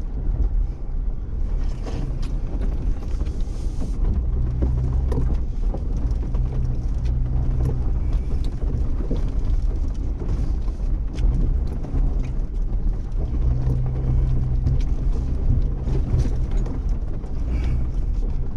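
A Jeep crawling slowly over a rocky wash. Its engine gives a low, steady drone that swells every few seconds. Scattered knocks and rattles come from the vehicle going over rocks.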